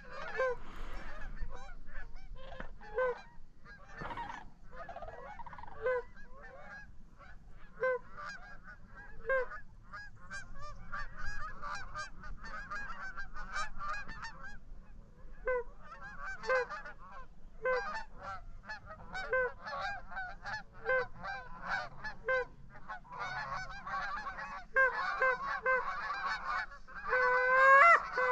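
Goose honks, a steady series of short honks and clucks that grows denser near the end into several overlapping, louder calls.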